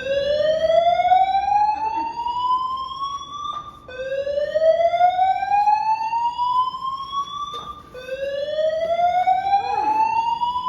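Building fire alarm sounding a slow rising whoop: each tone sweeps upward for about four seconds, drops back and starts again, three times.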